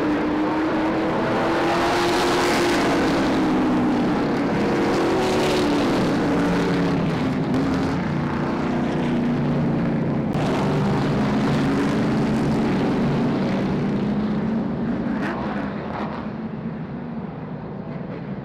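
Engines of a pack of Super Stock race cars running around an oval track, several at once, their pitch rising and falling as the cars pass. They get a little quieter near the end.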